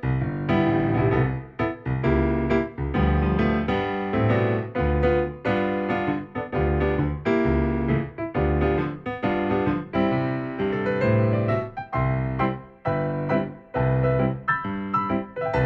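Solo piano music, notes played in a steady rhythm with a recurring low bass note.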